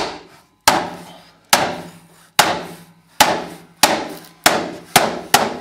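Hammer blows on a block of wood, driving a patio door's sill track down so it snaps into the frame channel: about eight sharp knocks, coming faster toward the end.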